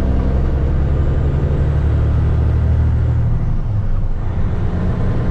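Semi truck's diesel engine running steadily with a low hum, heard from inside the cab while the air brake pressure builds; the engine note shifts briefly a little after halfway.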